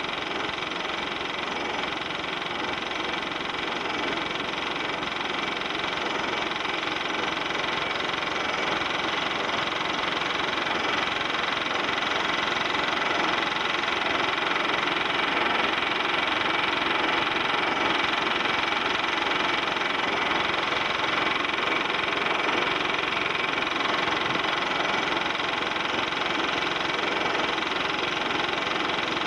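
Film projector running: a steady mechanical whir with a fast, even clatter underneath.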